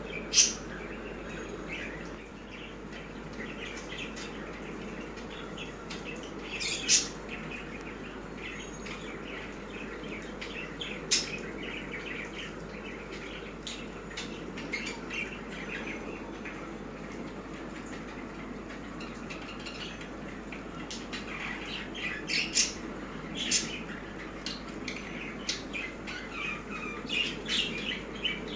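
Small caged or pet birds chirping and calling: a few loud, sharp calls stand out (near the start, around a quarter of the way in, and again a little later), and the chirping grows busier near the end. A steady low hum or hiss runs underneath.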